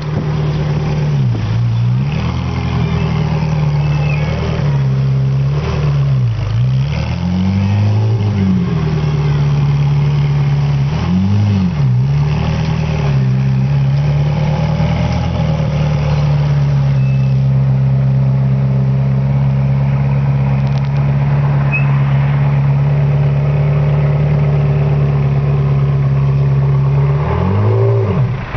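Motor vehicle engine running close by in slow traffic. Its pitch drops and climbs back several times in the first twelve seconds or so as the revs change, then holds steady, dipping once more near the end.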